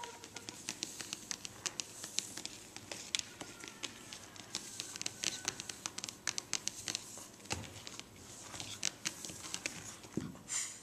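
Rapid, irregular light clicks and crinkles as a Rottweiler puppy's claws patter on a hard vinyl floor and a paper tissue is rustled, with a couple of soft thumps in the second half.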